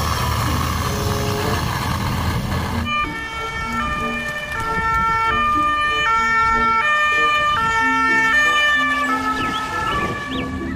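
Two-tone emergency-vehicle siren, switching back and forth between a high and a low note about every half second. It sets in about three seconds in, after a steady loud rushing noise.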